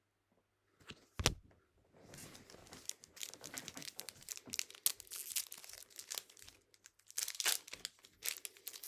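A single knock about a second in, then the crinkling of a foil trading-card pack wrapper being handled and opened, a dense run of small crackles.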